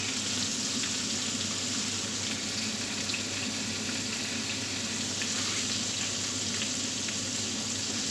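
Chicken frying in hot oil in a pan: a steady sizzle with scattered small crackles.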